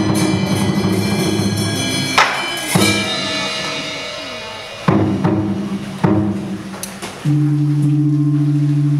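Live traditional Vietnamese water-puppet theatre ensemble playing: a fast percussion roll over low held notes, then four single percussion strikes that each ring and fade, and from about seven seconds in a steady, held low note.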